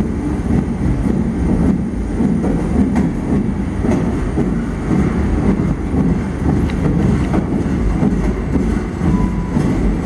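Train running on rails: a steady low rumble of wheels with faint clicks now and then.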